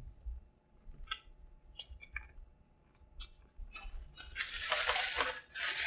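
Faint, scattered mouth clicks of chewing a bite of crispy chicken sandwich. From about four seconds in comes the louder, continuous rustle of a paper napkin being handled.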